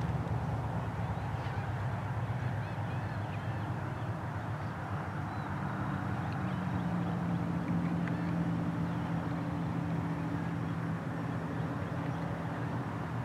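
Low, steady motor drone from a distant engine, a deeper tone strengthening about six seconds in, over a wash of outdoor noise with a few faint bird chirps.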